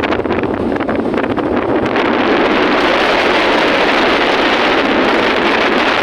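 Loud, steady wind rushing over the microphone, with the running noise of a moving vehicle beneath it.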